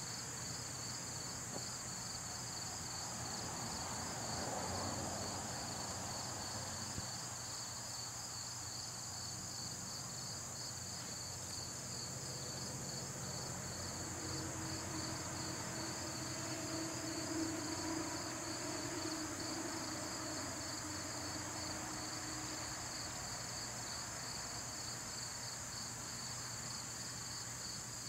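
Summer insect chorus trilling steadily: a continuous high buzz with a rapidly pulsing trill just below it. A faint low hum comes and goes in the middle.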